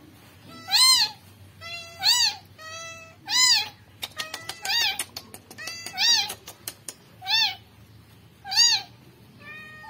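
Newborn kitten meowing repeatedly, about eight high, thin cries roughly one every second and a bit, each rising and then falling in pitch. A quick run of faint clicks comes about four seconds in.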